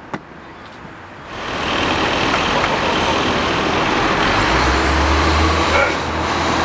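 Road traffic: vehicles driving past, with tyre and engine noise that swells in a little over a second in and stays loud. A deep engine rumble joins from about four seconds in.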